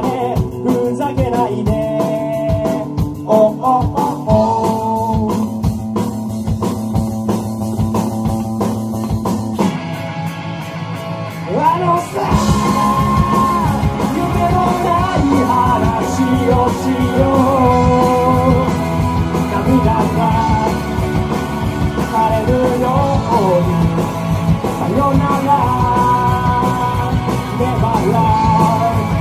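Live rock band playing: a singer over electric guitars, electric bass and drum kit. About ten seconds in the bass and drums drop out for a couple of seconds, then the full band comes back in with the vocals.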